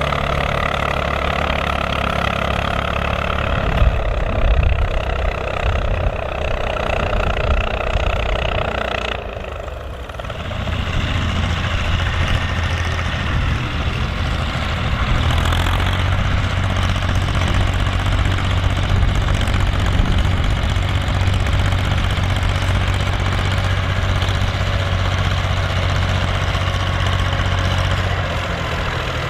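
Volvo BM farm tractor's diesel engine running while pulling a plough. About ten seconds in the sound dips briefly, then a steadier, deeper engine hum carries on.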